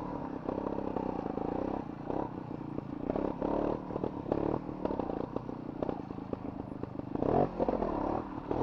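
Trials motorcycle engine at low revs, rising and falling with short bursts of throttle, with knocks and clatter from the bike working over rough ground.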